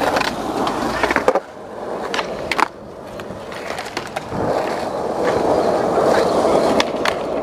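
Skateboard wheels rolling, broken by sharp clacks of the board, the loudest a little over a second apart early on. The rolling then builds louder again from about four seconds in.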